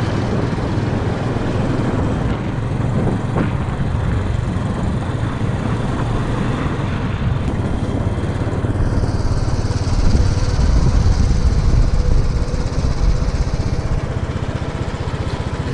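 A vehicle driving: steady engine and road noise, a little louder for a few seconds from about ten seconds in.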